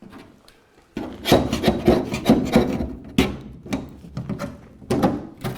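A hand tool scraping and chipping thick body filler off a Land Rover Series III rear body panel, in a run of uneven rasping strokes about three a second that start about a second in.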